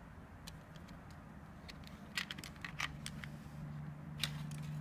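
Light clicks and taps of plastic power-bank cases being handled and set down on a table: a few scattered clicks, a quick cluster about two to three seconds in, and one more near the end, over a steady low hum.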